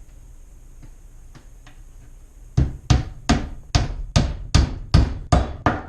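A hammer driving a ring shank nail into the wooden joint of a nuc box. A few light taps set the nail, then about nine hard, steady blows follow at two to three a second, each with a short ring.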